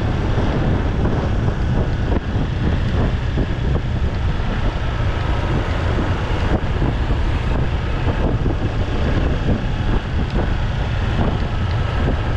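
Wind rushing and buffeting over the microphone of a moving motorcycle: a steady, loud low rumble with no clear engine note above it.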